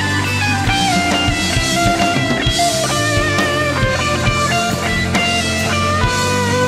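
Overdriven electric guitar solo: a Stratocaster through a Klon Centaur-style overdrive plays bent and sliding lead notes, with a falling run in the first couple of seconds. Underneath is a slow rock backing track with bass and drums.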